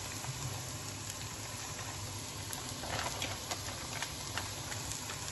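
Chopped onions in butter sizzling steadily in a frying pan, with flour just sprinkled over them. A few light clicks come about three to four seconds in.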